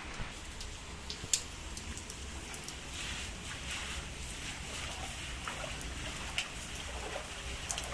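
Steady rain falling on a flooded concrete rooftop, with scattered sharp drip taps. From about three seconds in, a broom swishes and splashes through the standing water.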